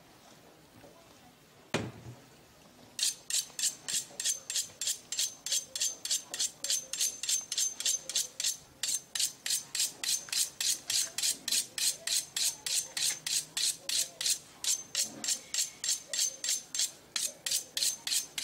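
Kitchen knife scraping against snail shells in quick repeated strokes, about three a second, with a faint metallic ring, as the snails are cleaned and shelled by hand. A single knock about two seconds in.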